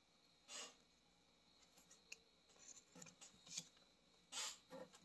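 Near silence with faint handling of trading cards: a few short soft swishes as cards slide against one another, about half a second in and twice near the end, and light ticks in between.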